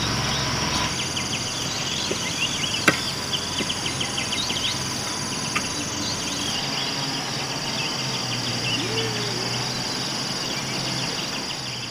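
Outdoor ambience: a steady high-pitched insect drone, with many short bird chirps over it during the first half and a sharp click about three seconds in.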